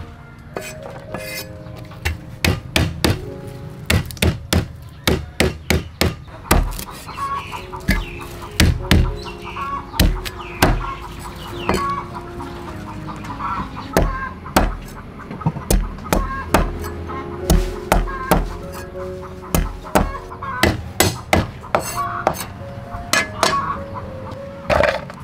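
Cleaver chopping lemongrass and garlic on a wooden chopping block, a long run of sharp, irregular strikes starting about two seconds in.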